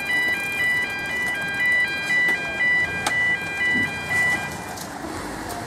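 Electronic two-tone warning alarm at a lift-bridge road crossing, a high and a lower tone alternating about twice a second as the barrier arms rise. It stops about four seconds in.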